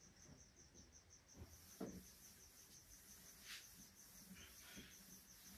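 Near silence: a faint cricket chirping steadily at about five pulses a second, with a few soft swishes of a cloth duster wiping a whiteboard.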